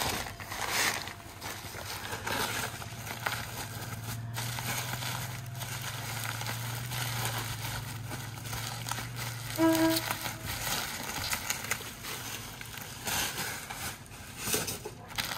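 Plastic bubble wrap and cloth wrapping rustling and crinkling as a parcel is unwrapped by hand. A steady low hum runs underneath for several seconds, and a brief squeak comes about halfway through.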